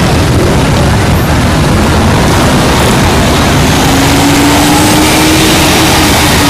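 Many motorcycle engines running together in a loud, steady rumble. About four seconds in a heavier engine note comes in as a fire truck draws close.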